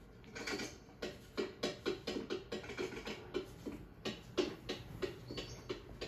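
Quick, irregular plastic tapping of toys' footsteps on a wooden floor, several light taps a second. It is a film sound effect heard through a TV speaker, so it rings slightly in a small room.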